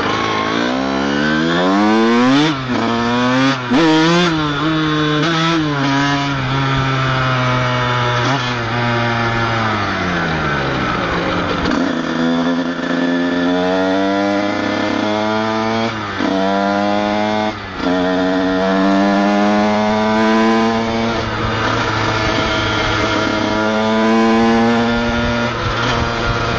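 Honda CR125's single-cylinder two-stroke engine under way, revs climbing and falling again and again, with a few short breaks between climbs as the throttle is shut for gear changes. The owner says the clutch is burnt.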